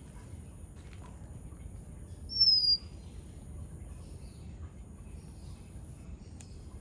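Oriental magpie-robin giving one loud, clear, short whistle that slides down slightly in pitch about two seconds in, followed by a few faint softer notes. A steady high insect drone runs underneath.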